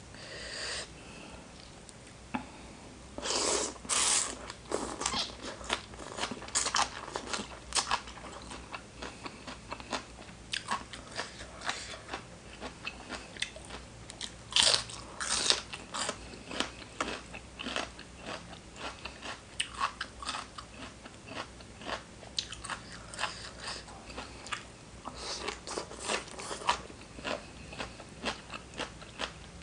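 Close-miked eating of spicy seafood papaya salad with crisp raw side vegetables: loud, irregular crunchy bites and chewing, in clusters with quieter chewing between.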